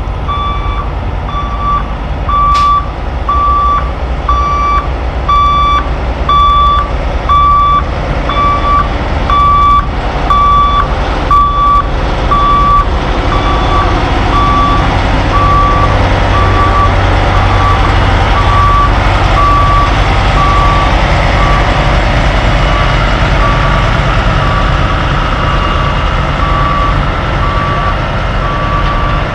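Backup alarm beeping over a diesel heavy truck's engine as a lowbed rig reverses. The beeps come about once a second, then quicker and shorter from about halfway through, while the engine noise grows louder and steadier.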